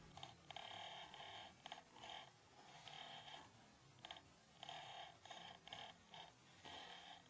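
Near silence: room tone, with faint tones that come and go.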